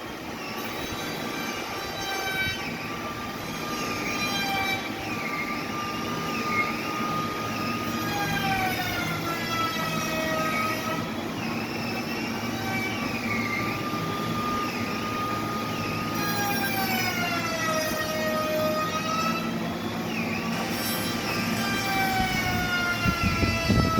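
Heavy sawmill machinery running with a whining tone that slowly falls and rises in pitch every few seconds over a steady low hum, with a clatter near the end.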